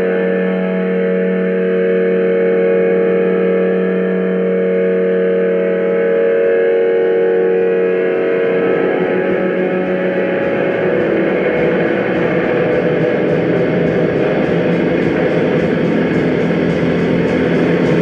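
Distorted electric guitar holding a droning chord. About eight seconds in it gives way to the steady rushing noise of a running vacuum cleaner, used as an instrument in the track.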